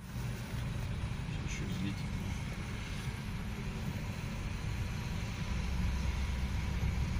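Steady low rumble of a car's engine and tyres heard from inside the cabin while driving along a motorway.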